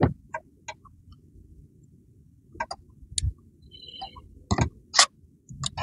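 Irregular sharp clicks and light scratches from hands and a tool working soil and roots out of a bonsai's root ball during repotting.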